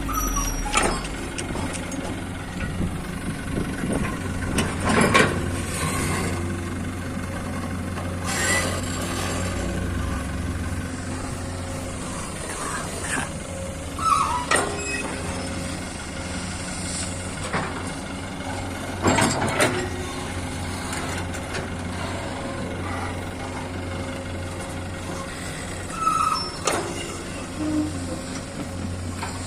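Heavy diesel machinery running steadily as an excavator loads a dump truck, with loud bangs and clanks every few seconds and a few brief squeals.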